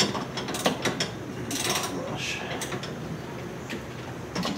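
Hand tools clicking and knocking on metal parts in a truck's engine bay, in an irregular string of sharp ticks, with a short scraping noise about a second and a half in.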